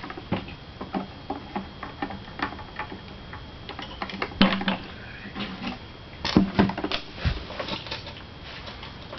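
Irregular light clicks and knocks from hands working on a lawnmower, with a few louder knocks around the middle.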